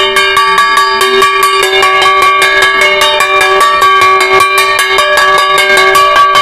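Metal ritual percussion beaten fast and evenly, about six strokes a second, with its ringing tones held steady underneath: the shaman's accompaniment to a jhakri trance ritual.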